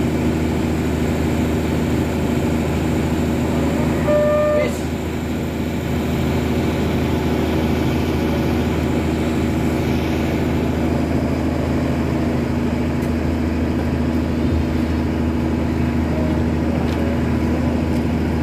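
An engine running steadily at constant speed, a low drone. A short horn-like toot sounds about four seconds in.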